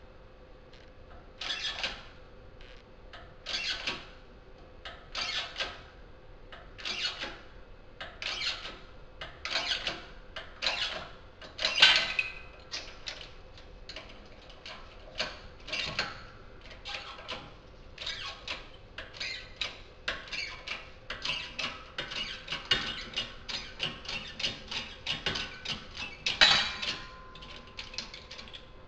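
12-ton hydraulic shop press being pumped by its bottle-jack handle, a short sound with each stroke. The strokes come about every second and a half, then quicken to about two a second around two-thirds of the way in, as the ram presses the old hub out of the wheel bearing.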